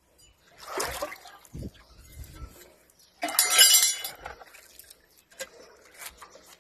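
Kitchen knife scraping and cutting a raw fish on a wooden chopping stump: irregular wet scraping and crackling strokes, with a dull thud on the block a bit over a second in and the loudest scrape about three to four seconds in.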